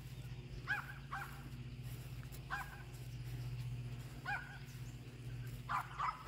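Yorkshire terrier barking at a groundhog: about six faint, short, high yaps, some in quick pairs.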